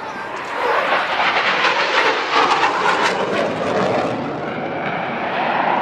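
Military jet aircraft flying past. Its loud engine noise swells about a second in and then holds steady.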